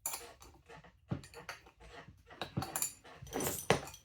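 Clicks, clinks and knocks of metal tools and small parts being handled on the workbench, with a few sharper knocks and a short scraping rustle near the end.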